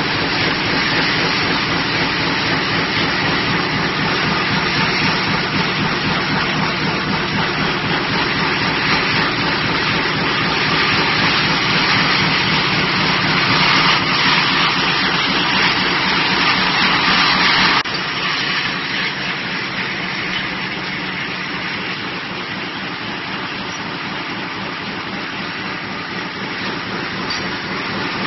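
Mini coil slitting line running: steady machine noise of drive motors and rollers as metal strip feeds through the rotary slitter knives, with a low hum under it. The noise drops suddenly about two-thirds of the way through and stays quieter after that.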